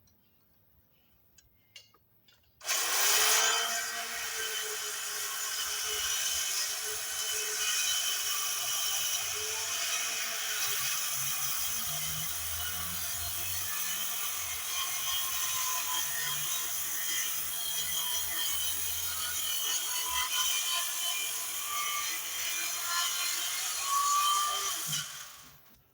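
Worm drive circular saw cutting lengthwise through a 6-by-8 timber beam. It starts suddenly about three seconds in, runs steadily with its motor pitch wavering under load for some twenty seconds, then winds down near the end.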